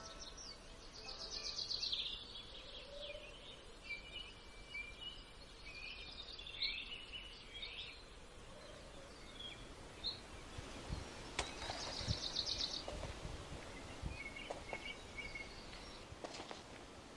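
Outdoor park ambience with songbirds chirping and trilling. From about the middle, scattered footsteps join the birdsong.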